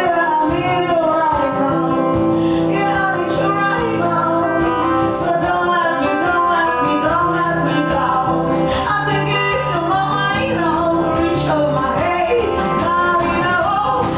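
A song: a voice singing over plucked guitar accompaniment, with sustained low bass notes underneath.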